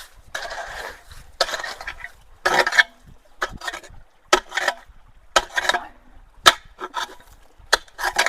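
A hand tool digging and scraping into gravel and dirt in about ten rough strokes, the later ones ending in sharp knocks.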